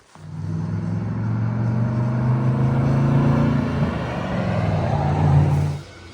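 Motor vehicle engine running steadily, with a brief rise in pitch partway through; it cuts in suddenly at the start and cuts off abruptly near the end.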